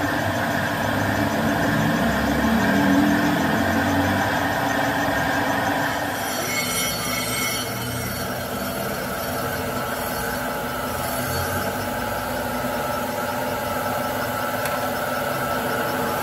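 Metal lathe spinning a six-cylinder crankshaft while the cutting tool turns down a welded-up journal: a steady machine drone with scraping cutting noise. The sound turns higher and hissier about six seconds in.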